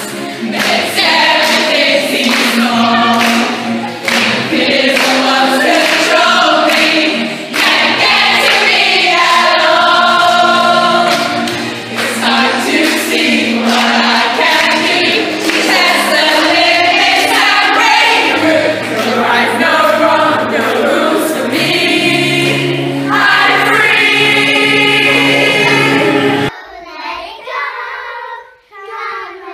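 A large group of teenage girls singing a song together, loud and full-voiced. About three seconds before the end it cuts off abruptly to a quieter child's voice singing.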